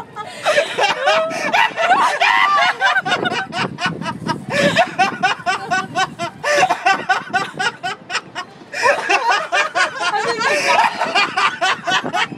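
A man laughing hard and uncontrollably, in long fits of rapid bursts, with a short break about eight seconds in.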